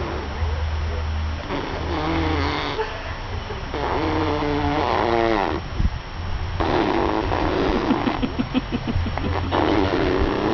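A person making sound effects with his mouth: a run of rough, noisy vocal sounds with pitched parts, one pitched sound falling steeply in pitch about five seconds in, and a rapid fluttering sound later on.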